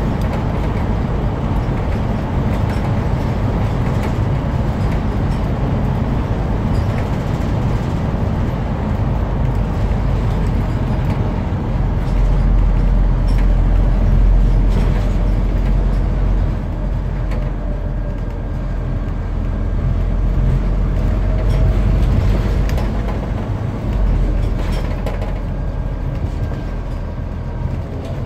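Scania CN230UB single-decker bus on the move, heard from inside the passenger saloon: its diesel engine and road noise give a steady low rumble, swelling louder around the middle and again a little later.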